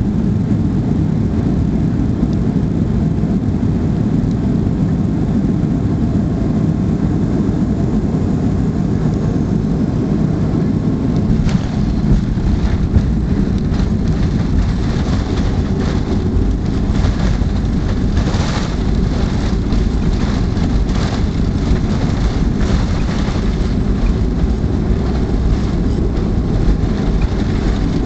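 Cabin noise of a Boeing 737-200 landing, heard by the window over the wing: a loud, steady rumble of its Pratt & Whitney JT8D engines and rushing air. About eleven seconds in, a deeper rumble sets in with a run of rattles and knocks, as the jet touches down and rolls out on the runway.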